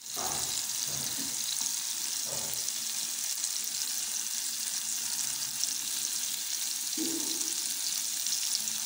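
Oil sizzling steadily in a frying pan around roasting tomatoes and garlic cloves, with a metal fork scraping in the pan a few times as the softened tomato skins are peeled off.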